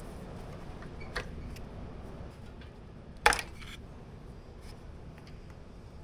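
Hands handling parts on a riding mower engine: a light click about a second in and one sharper clack about three seconds in, over a low steady background noise.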